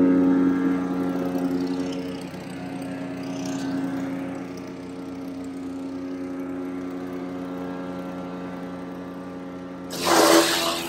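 DK2 Power gas-engine wood chipper running steadily at speed, then about ten seconds in it bites into branches fed into the hopper with a sudden loud burst of chipping.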